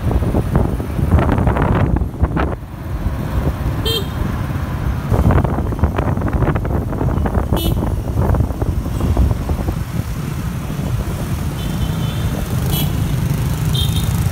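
Riding pillion on a motorbike through dense scooter traffic: a steady low rumble of engines, tyres and wind, with several short, high-pitched scooter horn beeps, most of them bunched near the end.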